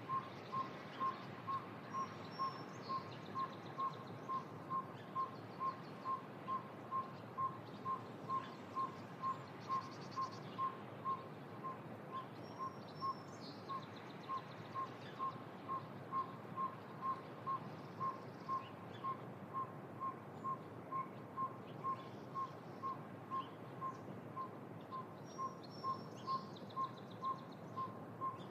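A bird giving a long, steady series of short whistled toots at one pitch, about two a second. A songbird's brief higher phrases break in now and then over an even background hiss.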